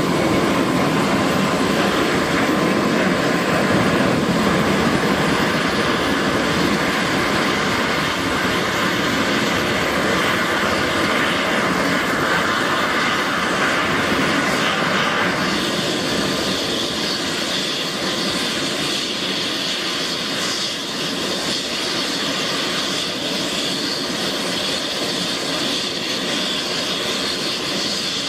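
Bell 429 helicopter's twin turboshaft engines and main rotor running on the ground before takeoff: a steady turbine whine over the whoosh of the turning rotor. About halfway through the sound turns brighter and slightly quieter.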